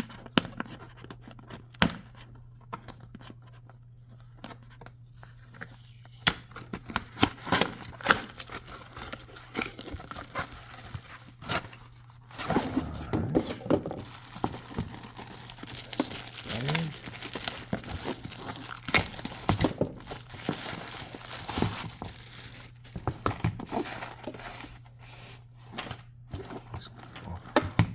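Drone's retail packaging being opened by hand: tearing, plastic crinkling, and irregular cardboard knocks and scrapes.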